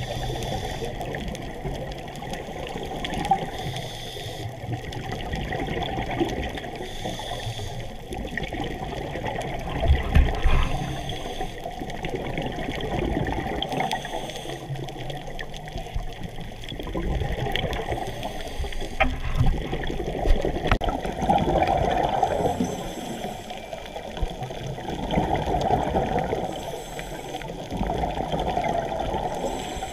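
Scuba divers' exhaled bubbles bursting from their regulators in surges every few seconds, over a steady muffled rush of water, heard underwater.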